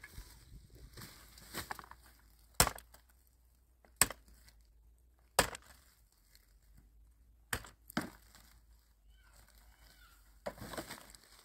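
Someone rummaging through a pile of rubbish with a plastic crate and plastic bag: about five sharp, separate knocks and clacks over quiet rustling, with denser rustling of plastic near the end.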